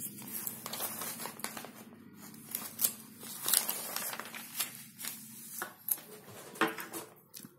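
Paper pages of a notebook being turned, a run of crisp rustles and flaps as the sheets are flipped over one after another.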